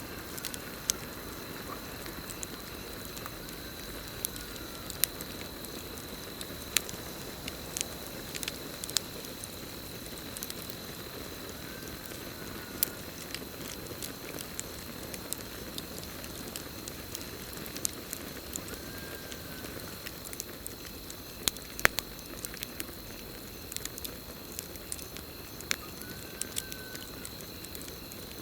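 Wood campfire crackling, with irregular sharp pops over a low steady hiss of burning. A continuous high cricket chirr runs underneath. A faint short arched call repeats about every seven seconds.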